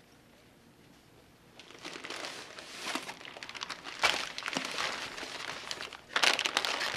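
Brown paper bag crinkling and rustling as it is handled and opened, with a knock as it is set on a wooden board about four seconds in and louder crinkling near the end.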